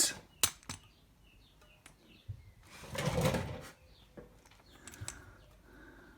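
Workshop handling noise as the motorcycle is heaved up: a few sharp clicks and knocks, then a louder scuffing burst about three seconds in.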